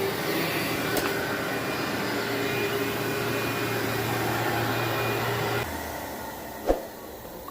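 Vacuum cleaner running steadily, then switched off about five and a half seconds in, followed a second later by a single thump.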